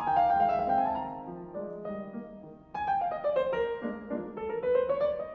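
Background piano music playing flowing runs of notes. It fades away about two and a half seconds in, then a new phrase starts.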